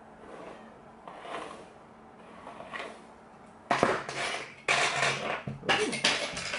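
A synthetic wig's hair being brushed and handled close to the microphone. Faint strokes come first, then three loud rustling strokes about a second apart in the second half.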